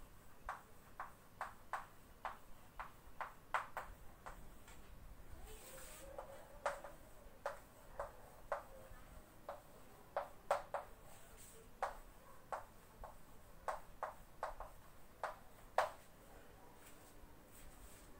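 Chalk tapping and scratching on a chalkboard as a sentence is written by hand: a string of short, sharp taps, one or two a second and unevenly spaced, that stop a couple of seconds before the end.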